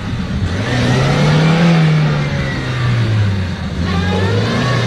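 Car engine revving hard as the vehicle works through deep mud, its pitch climbing over the first two seconds, dropping, and swelling again near the end.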